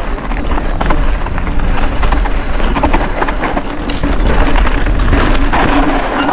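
Mountain bike descending a steep, stony singletrack: tyres crunching over loose gravel and rocks, the bike rattling and clicking over the bumps, and wind rumbling on the microphone.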